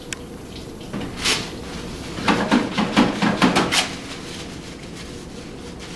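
Paper towels being pulled from a wall dispenser and crumpled in the hands while drying them: one rustle about a second in, then a quick run of rustling strokes lasting about a second and a half.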